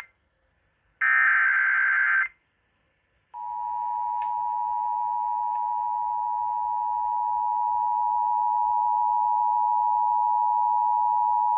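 Emergency Alert System tones on an FM radio broadcast. A harsh, buzzy data burst of about a second (the digital SAME header) is followed, after a second's pause, by the steady two-tone EAS attention signal, which holds for about eight seconds. Together they signal the start of a severe thunderstorm warning.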